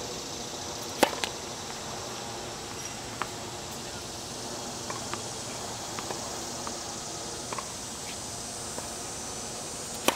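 Tennis serves: a sharp pop of the racket striking the ball about a second in and again near the end, with fainter short ticks between. A steady insect drone runs underneath.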